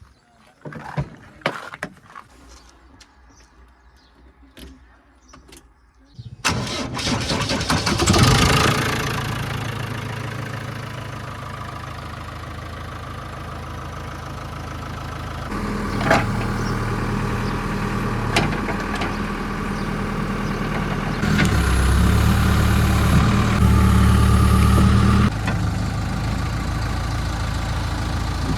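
A diesel engine starting about six seconds in, after a few faint clicks, then settling to a steady run. Its revs rise a little later on, louder for a few seconds near the end.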